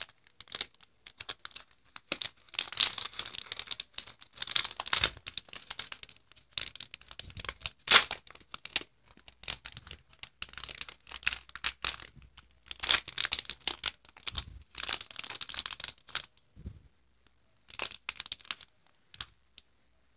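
Plastic wrapper of a bar of soap being torn open and peeled off by hand: irregular crinkling and crackling in bursts, stopping about a second before the end.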